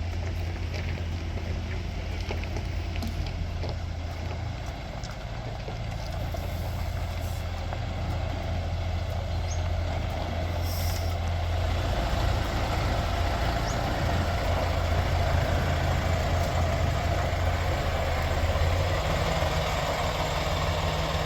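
Semi-truck's diesel engine running at low speed while the truck and trailer are manoeuvred into position, with a brief hiss about halfway through.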